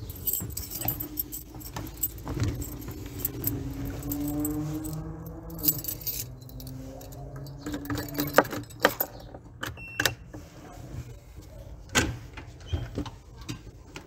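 A bunch of keys jingling and clinking in irregular shakes, with many sharp metallic clicks.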